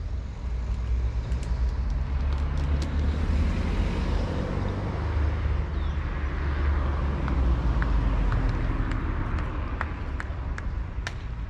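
Outdoor ambience: wind rumbling on the microphone, and road-vehicle noise that swells through the middle and fades near the end. A few sharp, distant knocks of tennis balls being hit are scattered through it.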